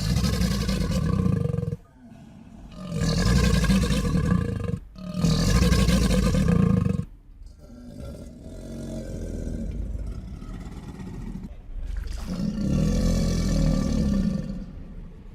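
Crocodile roars: a string of deep, rough, drawn-out calls of about two seconds each, with a quieter, lower growl in the middle stretch.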